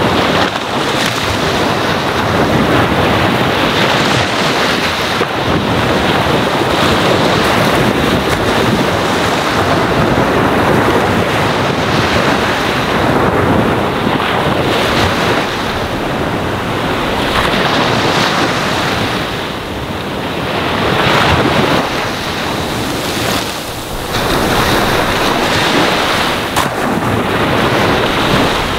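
Gentle ocean waves washing onto a sandy shore: a continuous rush of surf that swells and eases, with a couple of brief lulls past the middle.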